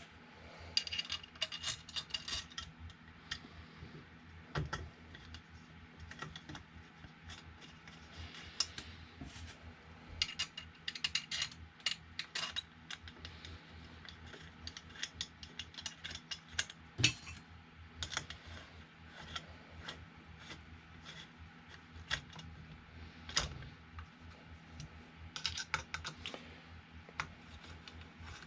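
Irregular small clicks and taps of metal hardware and frame parts being handled while fitting the power-supply mounting bracket of an Ender 3 Pro 3D printer, with a few louder knocks, one about seventeen seconds in.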